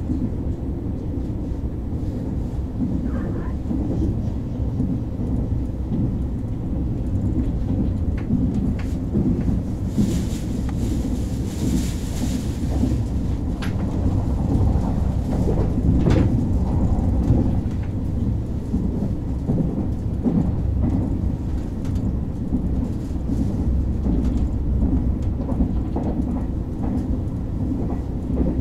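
Cabin noise of a KTX train running along the line: a steady low rumble of wheels and track, picked up through the window glass the camera is mounted on. A brief rush of hiss comes in about ten seconds in, with a few faint clicks.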